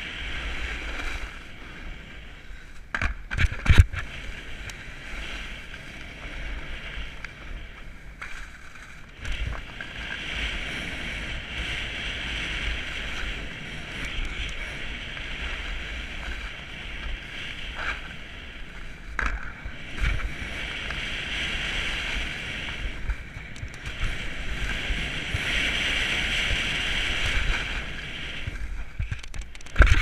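Snowboard sliding over packed snow: a steady scraping hiss from the board's base and edges that swells and eases as the rider turns, with wind rumbling on the microphone. A few sharp knocks come about three to four seconds in and again near the end.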